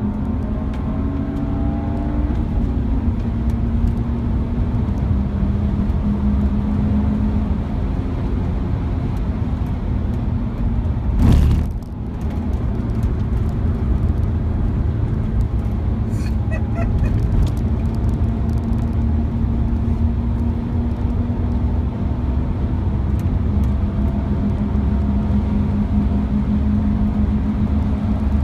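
BMW E46 330Ci's straight-six heard from inside the cabin, running hard at track speed with its note holding fairly steady, over dense road and wind noise. One brief louder rush of noise comes about eleven seconds in.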